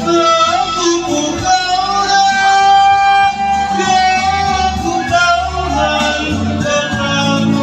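A solo voice singing a Toraja-language ballad over guitar accompaniment, holding one long note in the middle.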